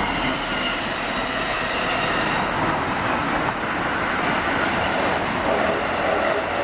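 A train passing a railway level crossing: the steady, continuous noise of its wheels running on the rails.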